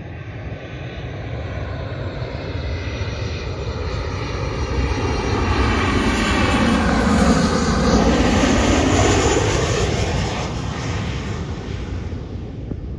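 Fixed-wing airplane passing low overhead. Its engine noise swells, is loudest about seven to nine seconds in, then fades as it moves away.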